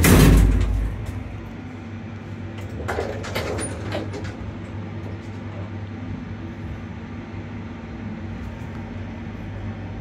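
Passenger lift built in 2005: its doors shut with a heavy thud, then the car travels with a steady drive hum, with a short clatter about three seconds in.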